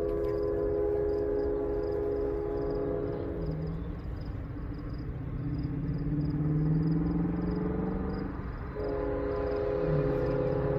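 Union Pacific diesel locomotive's multi-chime air horn sounding long blasts as the train approaches out of sight. Between the blasts, a lower tone rises slowly in pitch for a few seconds.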